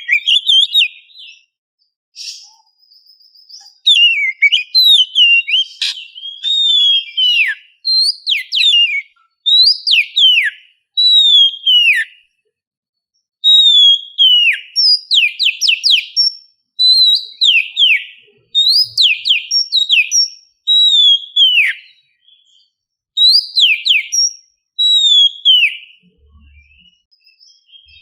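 Oriental magpie-robin (kacer) singing: loud whistled phrases, many of them sharp downward slurs, repeated in quick runs with short pauses between.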